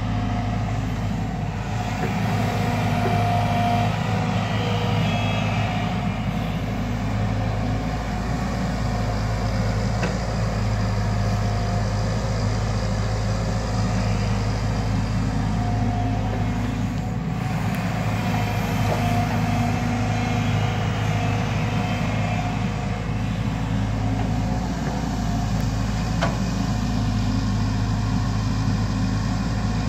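JCB tracked excavator's diesel engine running steadily under digging load, with a higher whine that comes and goes a few times as the boom and bucket work through the sticky mud.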